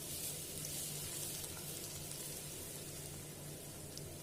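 Crushed ginger, garlic and green chilli sizzling in hot coconut oil in a pan, the sizzle a little stronger in the first second or so, with a few faint pops.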